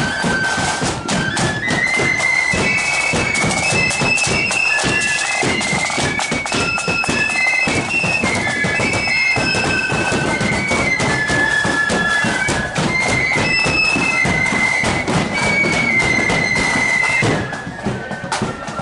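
Marching flute band playing a tune: high flutes carrying the melody over rapid snare and bass drum beats. The playing falls away near the end.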